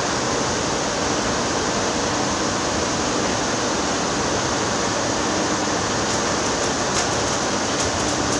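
Electric arc welding: a steady hiss and crackle as weld metal is built up on a damaged vibrating-screen shaft.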